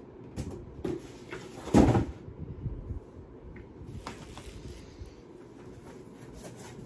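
Handling noises as products and packaging are moved about and set down. There are a few light knocks and one loud thump about two seconds in.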